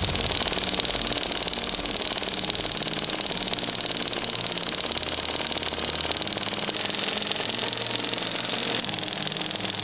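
Small alcohol-fired flame-eater (vacuum) engine of a model tractor running steadily, with a fast, even mechanical ticking.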